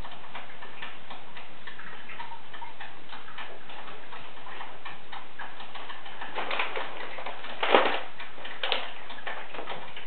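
Faint, irregular ticking and clicking over a steady hiss, with a short louder noise a little under eight seconds in and a smaller one about a second later.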